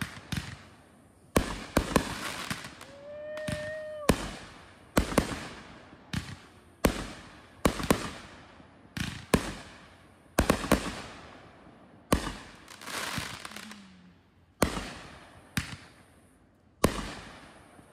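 Consumer fireworks going off in quick succession: a string of sharp bangs roughly a second apart, each trailing off.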